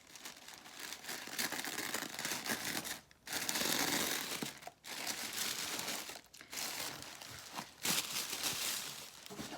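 Tissue paper crinkling and rustling as it is handled and unfolded, in several stretches broken by short pauses.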